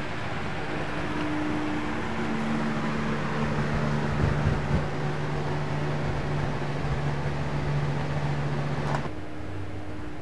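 Box fan in a window running: a steady whir with low hums that shift pitch, and a few knocks about halfway through. The sound changes abruptly about nine seconds in.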